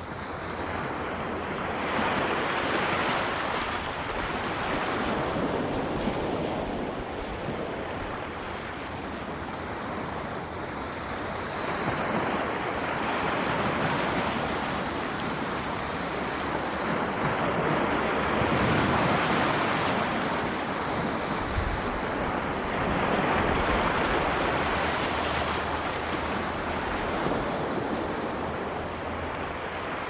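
Sea surf breaking and washing up a shore, the waves swelling and fading every few seconds.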